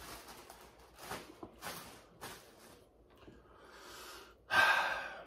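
Close-up eating sounds while boiled shellfish is peeled by hand: a few soft crackling rustles, then a short, louder noisy burst about four and a half seconds in.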